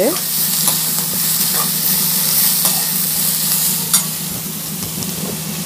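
Sliced onions, carrots and green chillies sizzling and frying in coconut oil in a metal kadai while a metal ladle stirs them. There are small clicks and scrapes of the ladle against the pan, and one sharper knock about four seconds in.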